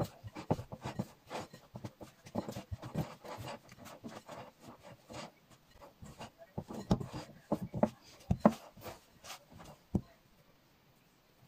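Hand working sticky pizza dough in a glass bowl: an irregular run of soft slaps and knocks, densest a little past the middle and stopping about a second before the end.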